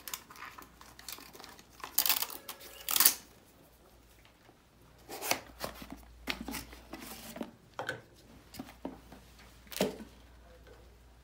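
Hands handling medical supplies: short rustles, crinkles and clicks of plastic packaging and a plastic bottle, in scattered bursts with brief pauses.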